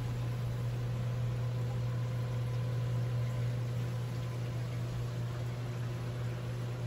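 Steady low electric hum of the reef aquarium's pumps and powerheads running, with a faint even hiss of circulating water.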